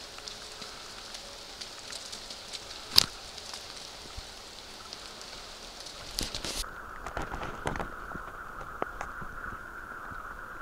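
Light patter and crackle of wet snow on leaves, with a sharp click about three seconds in and a few more clicks a little past the middle; partway through, the hiss turns duller.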